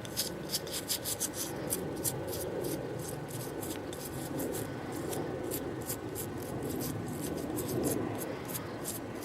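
Toothbrush scrubbing a small gilded metal artefact: quick, even brushing strokes about four a second, stronger for the first couple of seconds, over a steady low rumble.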